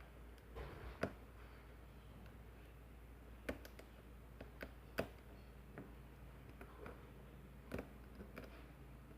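Small irregular metallic clicks and ticks of a lock pick working the pins of a small pin-tumbler lock under tension. Four sharper clicks stand out among the fainter ones.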